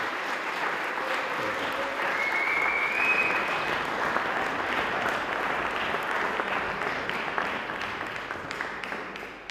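Audience applauding, fading out over the last couple of seconds into a few scattered claps. A brief high whistle-like tone sounds over the clapping about two seconds in.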